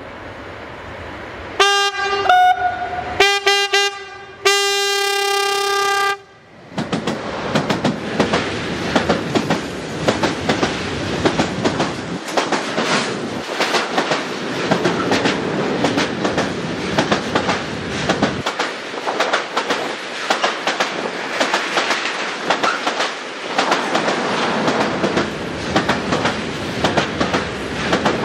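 Newag Dragon electric locomotive's multi-tone horn gives a few short blasts and then one long blast of about two seconds, an Rp1 'attention' warning signal. From about seven seconds in, a freight train of loaded tank wagons rolls past close by, its wheels clattering rhythmically over the rail joints.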